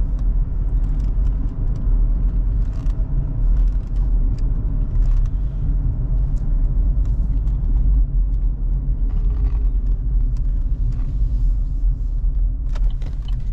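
Steady low road-and-tyre rumble from inside the cabin of a 2014 GMC Terrain on the move, with no bearing groan: the freshly replaced wheel bearing is running nice and quiet.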